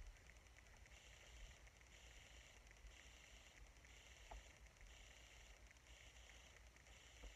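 Near silence: faint room tone with a low rumble and a faint high hiss that pulses about once a second.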